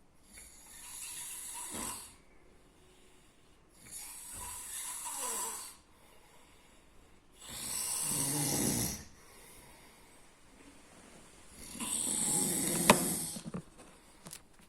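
A sleeping person snoring: four snoring breaths, each lasting under two seconds and about four seconds apart, with quiet in between. The last two are heavier, and there is a sharp click in the middle of the last one.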